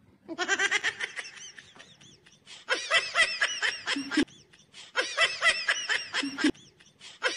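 High-pitched giggling laughter in short bursts, repeated about every two and a half seconds in near-identical form. Each burst ends on a short lower note.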